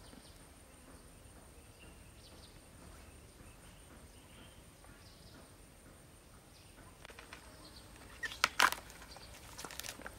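Quiet outdoor ambience with faint chirps, then from about seven seconds in a run of crackles and a few sharp snaps as banana flower bracts are handled and peeled off, loudest a little past eight seconds.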